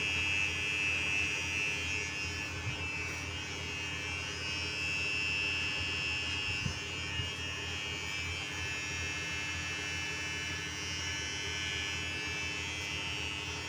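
Handheld electric hair trimmer running with a steady buzz as it trims at the sideburn and along the back of the neck.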